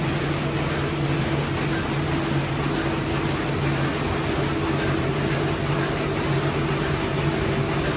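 High-speed envelope inserting machine running: a steady mechanical hum with a constant low drone over an even hiss.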